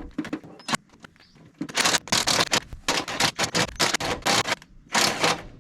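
Hand-tool work on rusted baler floor bolts: a few light metallic clicks, then from about two seconds in a run of short, harsh scraping strokes, about two a second.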